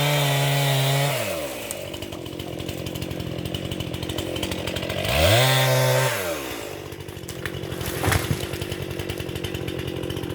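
Two-stroke chainsaw held at high revs, dropping to a rattling idle about a second in, then revved up briefly once more and let fall back to idle. A single sharp knock comes about eight seconds in.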